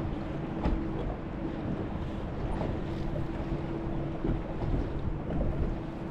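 Electric trolling motor on a bass boat humming steadily, with wind buffeting the microphone.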